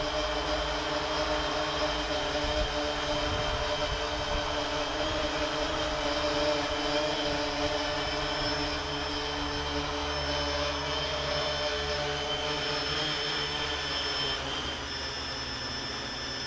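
3DR IRIS quadcopter's electric motors and propellers whining steadily as it hovers and comes down in an automatic landing forced by a drained battery; the hum drops a little near the end as it sets down. A high tone sounds on and off in long dashes over the second half.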